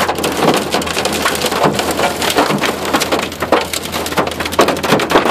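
Hail pelting a truck's windshield and body, heard from inside the cab: a dense, unbroken clatter of many hailstone hits mixed with rain.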